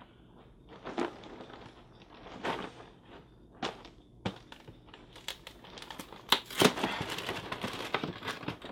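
Plastic packaging of a big box of Cheez-It crackers being handled and opened: scattered crackles at first, then dense, continuous crinkling with sharp snaps from about halfway through.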